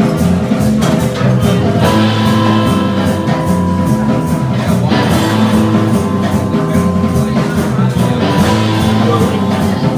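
Live rock trio of electric guitar, electric bass and drum kit playing an instrumental over a steady drum beat; the guitar holds long notes about two seconds in and again near the end.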